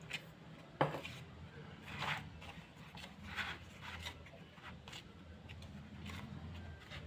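Wall putty and water being stirred into a paste in a small container, with irregular scraping and rubbing strokes against the container and a sharp click about a second in.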